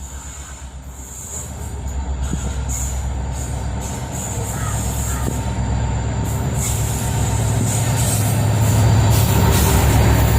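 WDP-4D diesel-electric locomotive approaching with its train, the low engine rumble and rail noise growing steadily louder as it nears.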